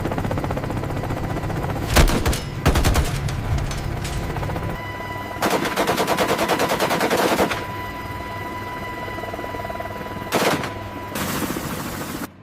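Bursts of rapid automatic gunfire: a few single shots, a short fast string, then one dense burst about two seconds long near the middle, and more bursts near the end. A steady low drone sits under the first few seconds.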